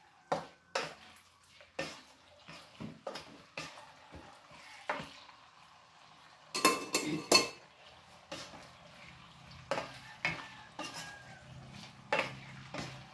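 A plastic spatula stirring and scraping pork pieces around a nonstick pot, with irregular knocks against the pot and a faint sizzle as the meat fries. About seven seconds in come three loud clinks, each with a short ring.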